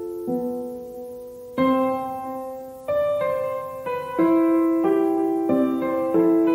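Background piano music: slow, single struck notes and soft chords that ring and fade, the notes coming closer together in the second half.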